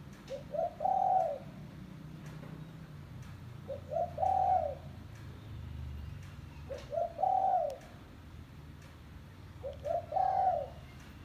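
Spotted dove (tekukur) cooing: four repeated call phrases about three seconds apart, each a couple of short notes followed by one longer drawn-out note.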